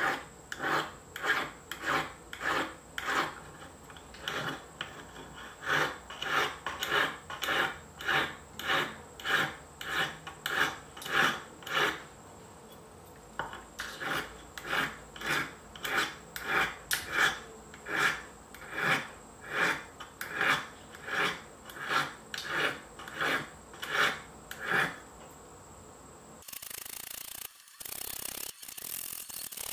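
Hand file drawn back and forth across the edge of a silver spoon's bowl against a wooden bench pin, about two file strokes a second, with a short break about halfway through. Near the end the strokes give way to a steadier hiss-like noise.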